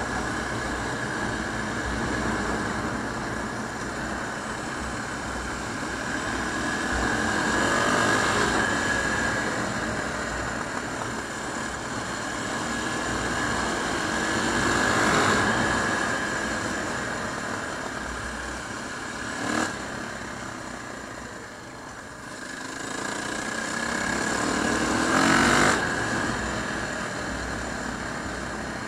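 KTM 525 EXC single-cylinder four-stroke engine running on the road, heard from the rider's own bike. It swells with rising pitch three times as the bike accelerates, and there is one short sharp knock about two-thirds of the way through.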